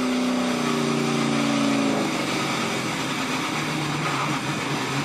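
NASCAR Cup car's V8 engine heard through the in-car camera of a car caught in a multi-car crash. The engine note falls slowly in pitch as the car slows, then drops lower and weaker about two seconds in, over a steady rushing noise.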